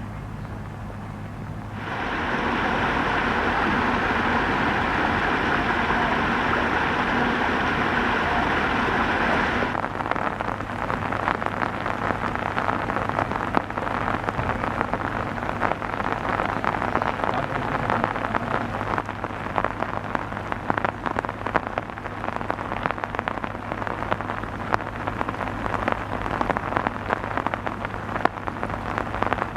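Monsoon rain falling on a surface, a dense patter of drops, with a low steady hum underneath. About two seconds in, a louder steady rushing sound starts, and it cuts off suddenly about ten seconds in.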